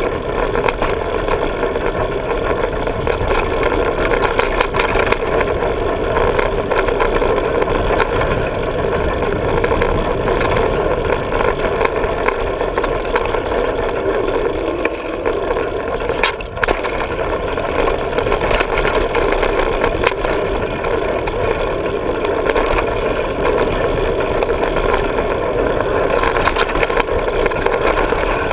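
Diamondback hardtail 29er mountain bike running fast down a dirt trail: a steady rush of wind and tyre noise with frequent small clicks and rattles as the bike rolls over rough ground.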